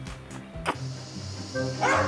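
Background music with steady notes, and a single short dog bark near the end.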